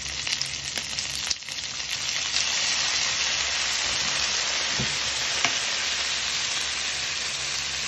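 Chicken, onion and garlic frying in a hot nonstick pan as soy sauce is poured in: a steady sizzle that grows louder and more even about two seconds in.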